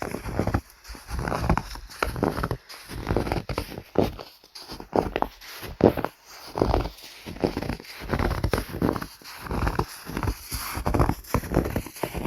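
Footsteps crunching through snow, a steady walking pace of about one step a second, each step a short noisy crunch.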